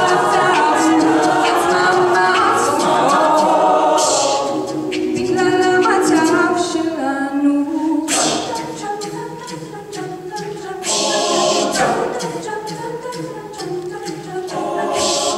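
A mixed men's and women's a cappella group singing a Hebrew song in close harmony, amplified through stage microphones, with a few short sharp hiss accents along the way.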